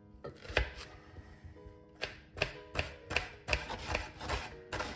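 Kitchen knife slicing an onion on a bamboo cutting board: a few knife strikes against the board, then a steady run of chops about three a second from about two seconds in.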